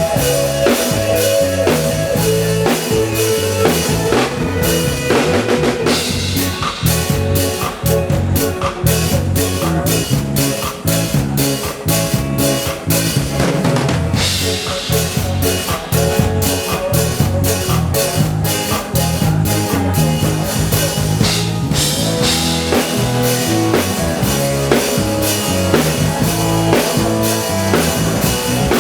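Live band playing, with a drum kit keeping a steady beat of snare, rimshots and bass drum under guitar and sustained pitched notes, recorded through a camera's own microphone.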